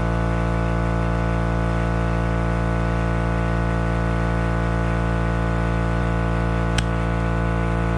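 Small air compressor running steadily, a constant motor hum, while it slowly fills a low tractor tyre. A single sharp click about seven seconds in.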